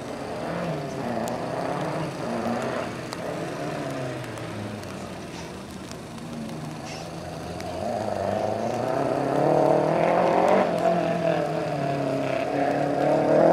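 Rally car engine revving hard, its pitch repeatedly climbing and dropping back as it accelerates and slows through the bends. It grows louder over the second half as the car draws nearer.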